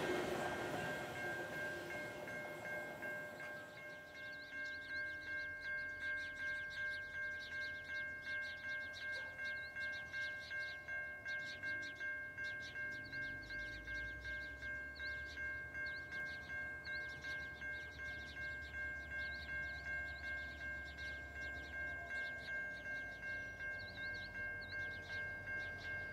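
Railway level crossing warning bell ringing steadily, about two strokes a second. The low rumble of the approaching diesel locomotives comes in under it for several seconds in the middle.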